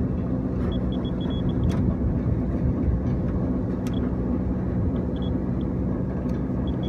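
Steady low machinery hum and rumble, with a few sharp clicks and several short high beeps.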